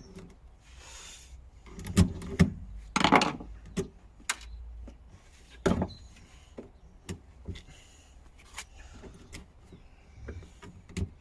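Scattered knocks and clicks of hands and tools working on car parts, with a short scrape about three seconds in.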